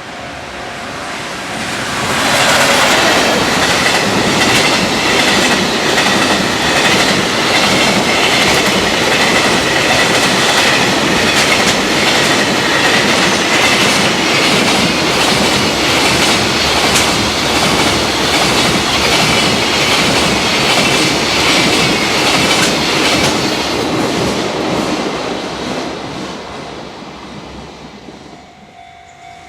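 A long electric freight train passing at speed, its wheels clattering in a fast, even rhythm over the rail joints, with a whine from the locomotive's traction motors under power. It builds up over about two seconds and fades away over the last few seconds.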